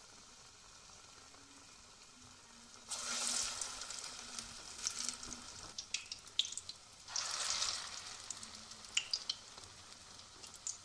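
Urad dal and colocasia-leaf pakoras deep-frying in hot oil in an aluminium kadhai. A low, steady sizzle flares up loudly twice, about three and about seven seconds in, with scattered sharp pops between.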